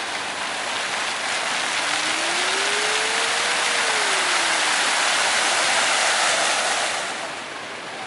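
Water jets of a lit dancing fountain shooting up and splashing back into the lake, a steady rush that swells as the jets rise into tall columns and drops off suddenly about seven seconds in as they fall back.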